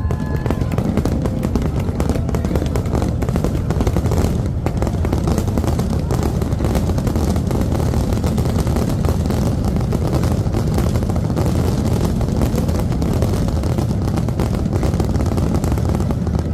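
Fireworks barrage: overlapping booms merge into a steady low rumble, with dense crackling throughout.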